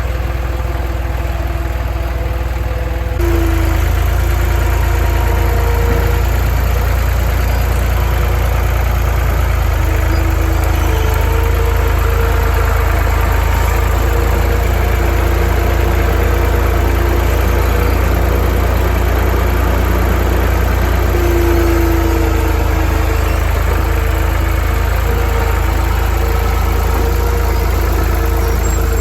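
An engine running steadily with a low hum and a wavering whine above it. It gets louder about three seconds in and holds that level.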